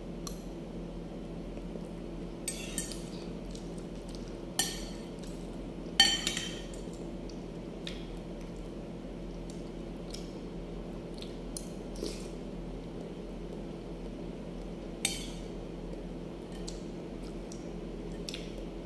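Metal fork and spoon clinking and scraping against a ceramic plate while eating: a handful of sharp clinks, the loudest about six seconds in, over a steady low hum.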